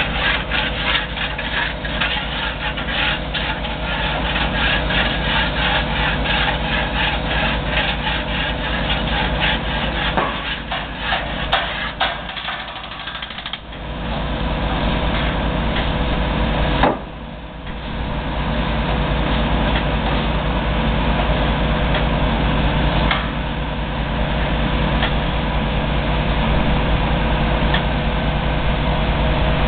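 Construction machinery engine running steadily, with a fast rattling clatter over it for roughly the first third, easing off briefly about halfway through.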